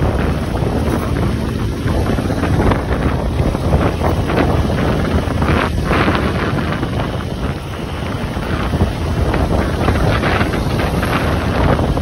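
Heavy wind buffeting the microphone, a loud continuous rumbling rush with no steady tone.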